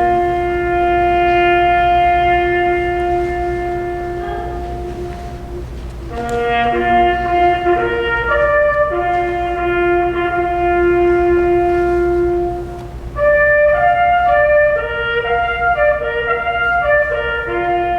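Slow melody on a wind or brass instrument, played from a recording over a hum: long notes held for several seconds, then a run of shorter, quicker notes about thirteen seconds in.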